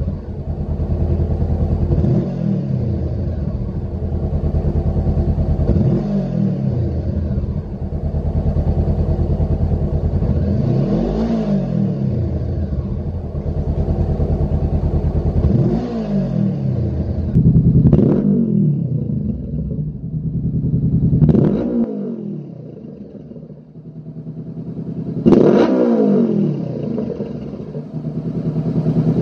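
Honda CBR500R's parallel-twin engine idling through its exhaust and blipped about seven times, each rev rising and falling quickly back to idle. The last few blips are sharper and climb higher, and the loudest comes near the end.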